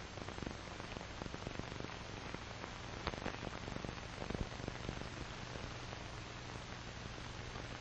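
Steady hiss with scattered clicks and crackles over a low steady hum: the surface noise of a 1940s film soundtrack.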